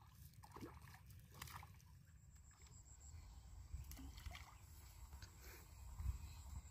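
Faint splashing of pond water as a hooked fish thrashes at the surface, over a low wind rumble. A steady thin high tone comes in about two seconds in, and a low thud sounds about six seconds in.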